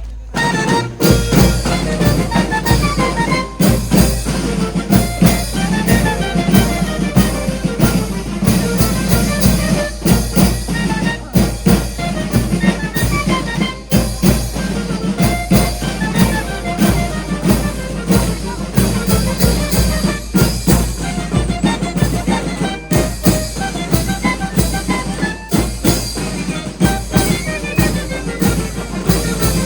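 Music with drums, percussion and brass, playing steadily with a regular beat.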